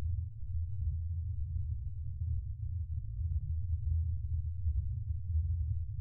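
Spaceship interior ambience sound effect: a steady, deep hum with nothing high in it, wavering slightly in loudness.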